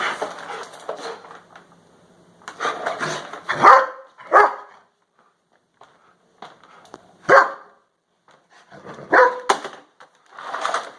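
Shepherd dog barking: several loud single barks, a second or more apart, with scuffling noise between them.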